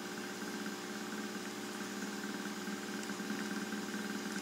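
Small hand-built reed-switch pulse motor with a magnet rotor running: a steady hum with a fast, even pulsing, growing slightly louder.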